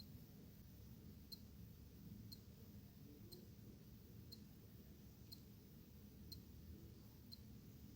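Wall clock ticking faintly, a light high click once a second, over low steady room noise.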